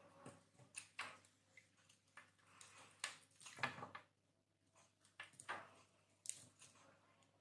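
Small knife blade cutting into a hard bar of Lux soap, a quiet, irregular series of crisp scraping cracks as chips break off, about a dozen strokes.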